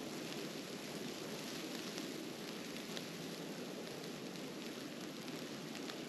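Steady hiss of a snowstorm, wind and falling snow, with faint scattered ticks.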